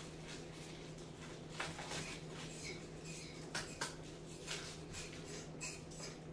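Faint scattered clicks and crinkly rustles of small objects being handled while a pig-tailed macaque eats and a man handles something in his hands, over a steady low hum.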